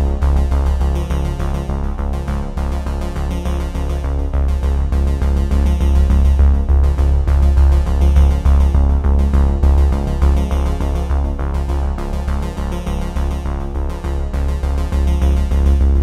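Upbeat electronic background music with a steady beat and a heavy synthesizer bass.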